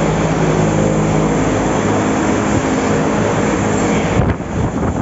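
Milking-parlour machinery running with a loud, steady mechanical drone made of several held tones. About four seconds in the drone drops sharply, leaving a few short knocks.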